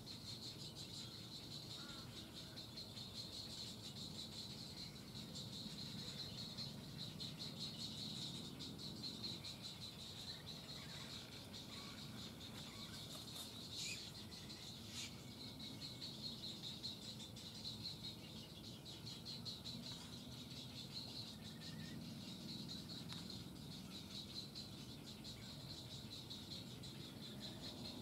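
Faint outdoor ambience of a steady, high-pitched insect chorus trilling without pause, with a few short bird chirps about halfway through.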